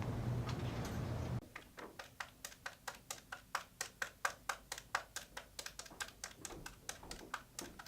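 Rapid, irregular clicking of keys being typed, several strokes a second, starting about a second and a half in after a low steady hum cuts off.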